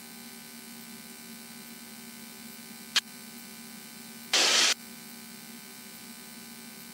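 Steady drone of a Cessna 172N's four-cylinder piston engine in cruise, heard through the headset intercom. A sharp click comes about three seconds in, and a half-second burst of radio static comes about a second and a half later.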